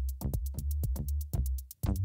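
Electronic drum-machine beat sequenced on a Novation Launchpad Pro MK3 and played through Logic Pro X: kick and bass underneath a fast, even run of hi-hat ticks, with short synth notes on top.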